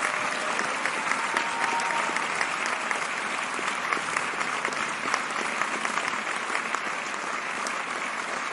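A large flock of budgerigars chattering, a steady twitter of many overlapping short chirps.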